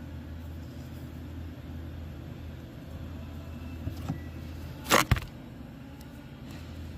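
A steady low hum runs throughout. About five seconds in come a sharp, loud double click and a couple of lighter clicks just before it, from hands handling the motor's wire leads and a blue butt connector.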